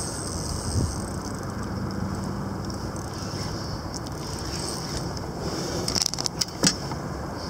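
Steady wind and water noise on an open boat, then a short run of sharp metallic clicks and rattles about six seconds in as the aluminium landing-net handle is picked up off the deck.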